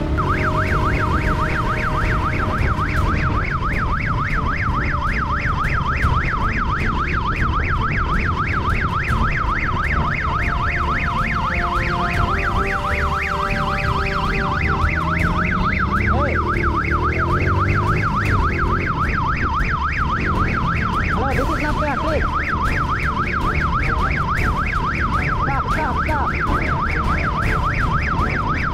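Police motorcycle's electronic siren sounding a fast warble, rising and falling in pitch several times a second without a break, over the low rumble of the motorcycle's engine and wind.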